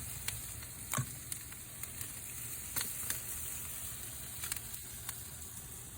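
Barbecue pig tails sizzling on a grill: a steady hiss with a few sharp crackles scattered through it.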